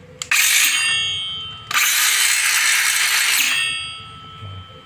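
Ingco CSLI1401 cordless circular saw with a 6-inch 60-tooth blade, run free in two trigger pulls, the second longer. Each pull gives a loud high whine that fades as the blade coasts down.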